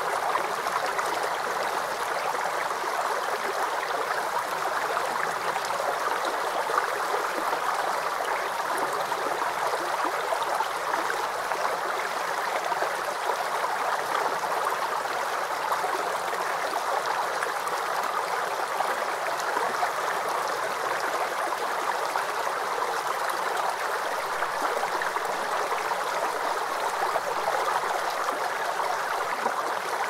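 A waterfall on a creek: a steady, unbroken rush of splashing water, strongest in the middle range with little deep rumble.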